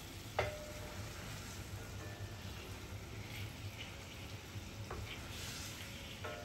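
Teriyaki sauce simmering and sizzling around chicken thighs in a stainless steel frying pan, with a wooden spatula clacking against the pan about half a second in, the pan briefly ringing, and a lighter knock near five seconds.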